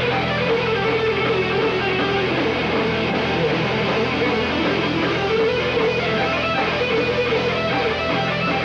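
Stratocaster-style electric guitar played live through Marshall amplifiers: a lead line of held notes that bend up and down in pitch.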